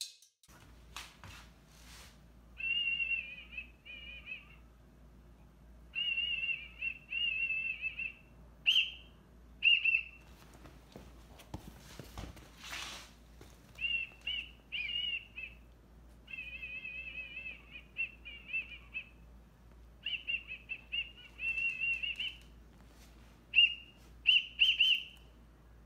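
A whistle blown in about ten trilling, warbling bursts, some held for a couple of seconds and some short blasts. About halfway through comes a short stretch of rustling.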